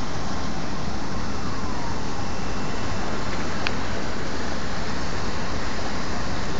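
Steady, loud outdoor background noise, like wind on the microphone and city traffic. A faint falling tone comes about a second in, and a single short click near the middle.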